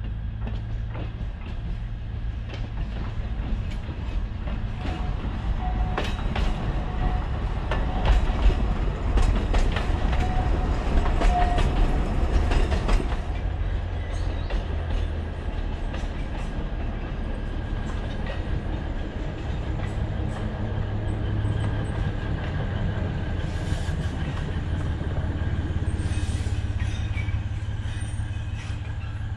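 Alishan Forest Railway narrow-gauge diesel train running, a steady low engine rumble throughout. Between about six and thirteen seconds in come a run of wheel clicks over rail joints and a thin squeal, the loudest part.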